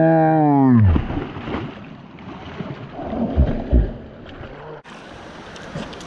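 A loud, long drawn-out voice call, held on one pitch and then dropping off about a second in, followed by river water splashing and sloshing as a large dog goes in and swims.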